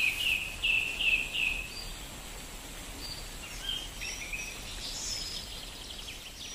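Birds chirping over a faint steady hiss of forest ambience. A quick run of repeated notes comes first, then scattered, higher chirps.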